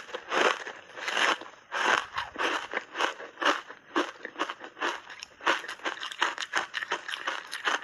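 Blueberry foam reshaped ice coated in heavy matcha powder being bitten and chewed, a steady run of sharp, crisp crunches, two or three a second.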